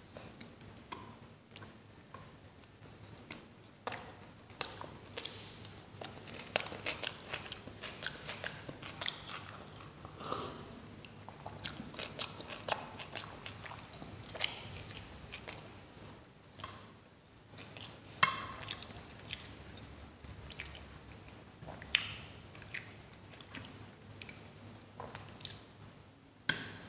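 Chewing a mouthful of buttered gobi (cauliflower) paratha, with sharp mouth clicks at irregular intervals.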